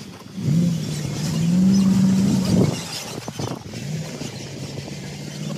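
SUV engine running as it drives up a dirt track: a steady low hum that rises a little in pitch and grows louder about a second and a half in, then eases off near the middle and carries on lower.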